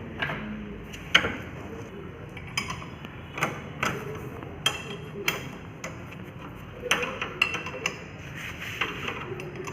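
Sharp metallic clanks and knocks at irregular intervals, the loudest about a second in: hand tools working on a Honda Dio scooter's clutch nut to loosen it.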